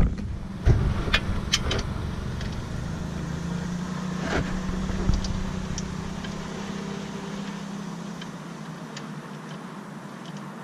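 Scattered metal clicks and knocks of a socket wrench loosening an ATV engine's oil drain plug, over a steady low background rumble that fades after about 8 seconds.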